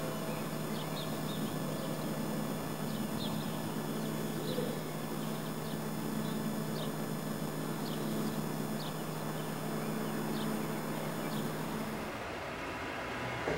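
Steady background noise in the camera's recording: a low hum with several high, evenly spaced whining tones above it, which the uploader calls a non-natural noise. Short bird chirps come through about once a second. About twelve seconds in, the high tones and hum stop and a plainer background noise takes over.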